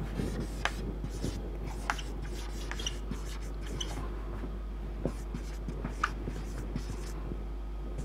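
Whiteboard marker writing on a whiteboard: a run of short scratchy strokes and brief squeaks as the letters are formed, over a steady low hum.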